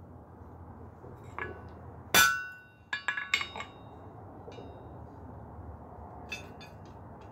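Steel clinking against a blacksmith's anvil as hot bar stock and a hand-held top tool are set on the anvil edge: one loud ringing clank about two seconds in, then a quick run of three or four lighter ringing clinks, and a few faint clicks near the end.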